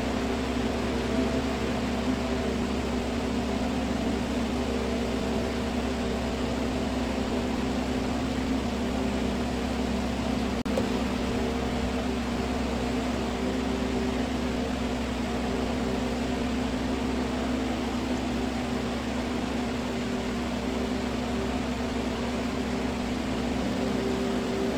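Steady mechanical hum of a fan or air-conditioning unit with a few constant low tones, and one faint click about eleven seconds in.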